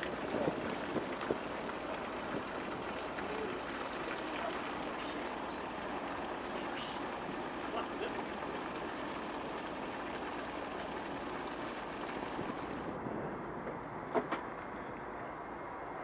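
Steady rushing hiss and splashing of a jet of water pouring from a steam locomotive onto the track ballast, with a few light knocks. About thirteen seconds in the hiss turns duller.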